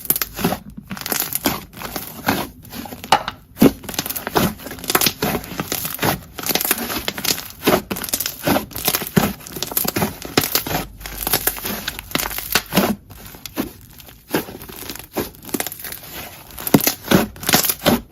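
Jelly slime being squeezed and poked by hand, giving a dense, irregular run of sticky crackles and pops.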